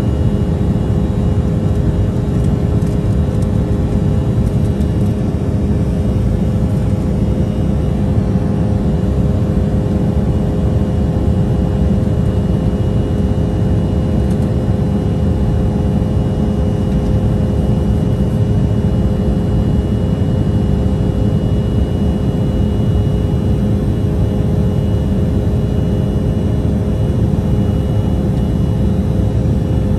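Cabin noise of an Embraer 175 in the climb after takeoff, heard inside the cabin next to the wing: a steady, loud rumble of the GE CF34 turbofans and the airflow, with a steady hum and a faint high whine running over it.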